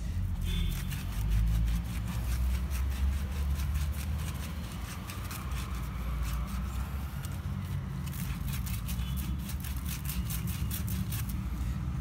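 Sandpaper rubbing back and forth on the end of a copper refrigeration tube, faint rasping strokes over a steady low rumble.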